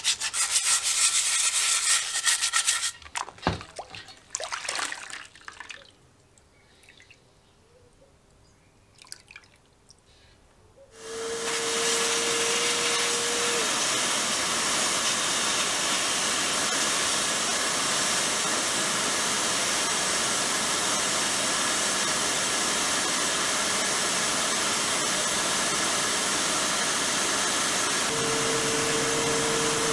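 Sponge scrubbing a plastic part in soapy water for the first few seconds, then a few knocks and a short near-quiet stretch. About eleven seconds in, the loud, steady hiss of an air blast gun in an abrasive blast cabinet starts and runs on, with a steady tone over it at first and again near the end.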